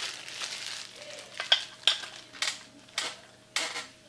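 Caster wheels being fitted into a gaming chair's plastic five-star base by hand: a crackling rustle of handling at first, then a string of about six sharp clicks and knocks as the parts are pushed together.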